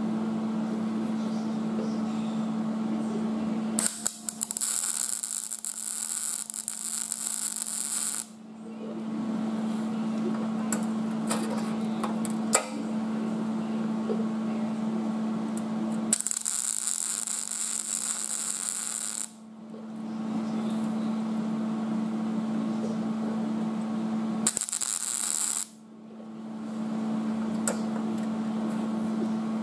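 Welding arc crackling in three bursts, about four, three and one second long, as a new sheet-metal inner rocker panel is welded through the drilled holes along its flange. A steady hum runs underneath.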